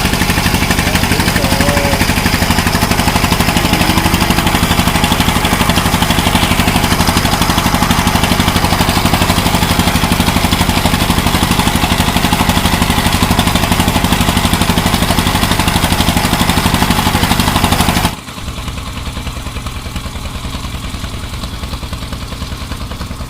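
Fishing boat's engine running steadily with a rapid, even pulse. About eighteen seconds in it drops abruptly to a quieter, steady level.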